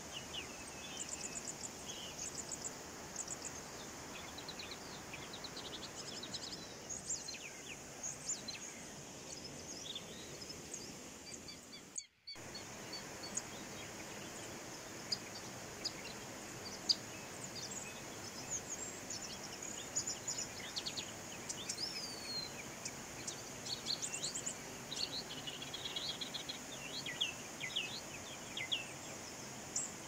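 A shallow mountain stream running over rocks gives a steady hiss. Small birds chirp and twitter on and off over it. All sound drops out for an instant about twelve seconds in.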